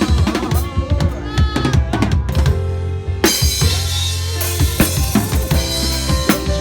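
Band playing live with the drum kit to the fore: kick drum and snare hits under guitar and bass. A loud hit about three seconds in, after which low notes are held.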